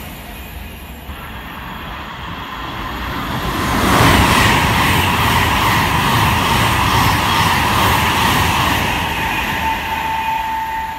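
A train passing close by. It builds up from about two seconds in and is loudest from about four seconds on as the train goes by, with an evenly repeating clatter of wheels over the rails.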